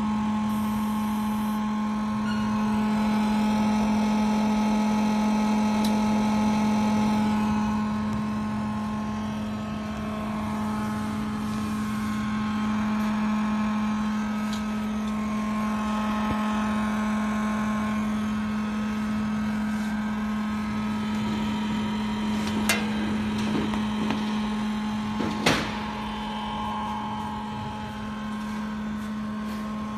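2 kW portable induction heater running: a steady electrical hum with higher whining tones that rise, fade and shift. Two sharp clicks about three-quarters of the way through.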